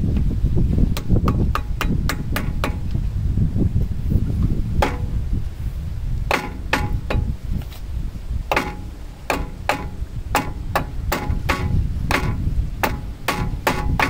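Repeated hammer blows on a screwdriver wedged against a truck's front brake caliper, used as a drift to work the caliper loose for a pad change. The blows are sharp, ring metallically, and come in irregular runs with short pauses between them.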